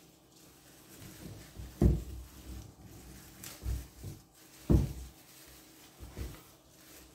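Dull knocks from a glass vase being handled on a tiled counter while flowers are arranged in it: two loud ones about three seconds apart, with softer knocks between and after.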